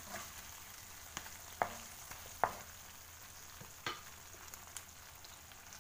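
Prawns sizzling steadily as they fry in butter and tomato sauce in a non-stick pan. A wooden spatula knocks sharply against the pan four times while stirring them.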